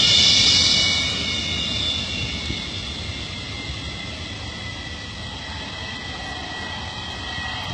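MiG-23BN's Tumansky R-29B-300 turbojet running as the jet taxis away: a loud hiss with a steady high whine that fades over about the first second, then holds at a steady lower level.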